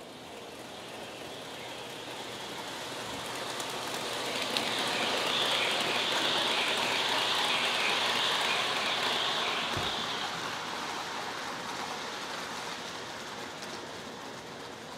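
Model Amtrak passenger train running by on sectional track, its wheels rolling over the rails. The sound grows, is loudest about halfway through as the cars pass close, then fades away.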